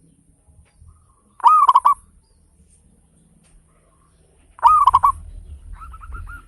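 Zebra dove singing: two loud phrases about three seconds apart, each a rising coo breaking into quick stuttering notes, followed near the end by a softer run of quick repeated notes.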